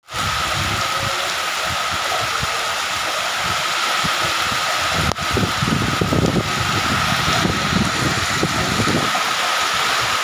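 Heavy tropical rain pouring steadily onto concrete, puddles and roofs, a dense even hiss with an irregular low rumble underneath that grows stronger about halfway through.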